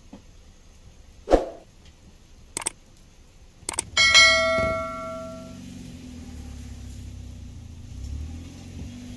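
Subscribe-button sound effects: a quick swish, two mouse clicks, then a bell chime that rings and fades over about a second and a half. A low steady hum runs under the second half.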